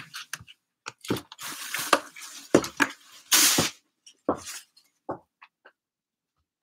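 A run of knocks, clinks and rustles from a person getting up and moving off, with a short rushing noise about three and a half seconds in; after that the clicks grow fainter and sparser as she moves away.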